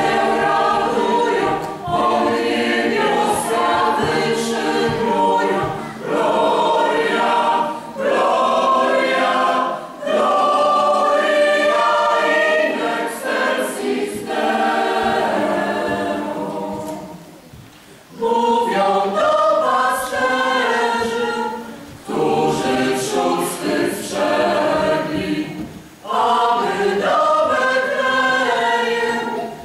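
Mixed choir of men's and women's voices singing a Christmas carol unaccompanied, in phrases of a few seconds, with a short break in the singing a little past halfway.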